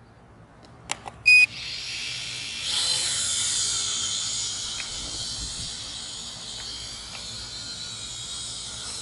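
Small quadcopter drone (Holy Stone HS110W) starting up: a couple of clicks and a short electronic beep, then the motors and propellers spin up to a steady high whine. The whine swells as the drone lifts off and slowly fades as it flies away.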